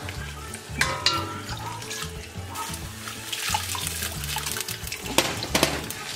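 Chile-tomato sauce and a cup of water pouring and trickling through a metal mesh sieve into a pot, with a spoon stirring and clinking against the strainer a few times.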